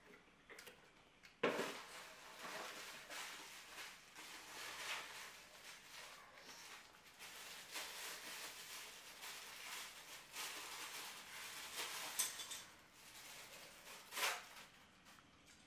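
Clear plastic packaging bag crinkling and rustling as it is handled and opened, with a sharp crackle about a second and a half in and another near the end.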